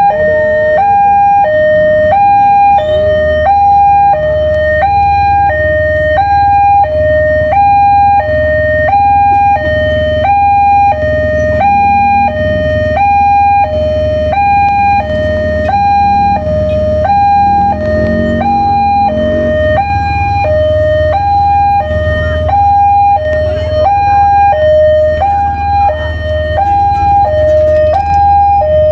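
Railway level-crossing warning alarm sounding an electronic two-tone signal, a high and a low note alternating evenly, about one pair every second and a half. A low engine rumble runs underneath.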